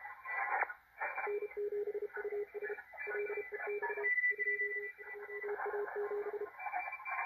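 A Morse code (CW) pileup on the 40 m amateur band heard through a Malachite DSP SDR receiver: many stations keying at once at different pitches over band noise. One strong low tone sends dots and dashes from about a second in until near the end. The signals overlap too closely for the receiver's decoder to read.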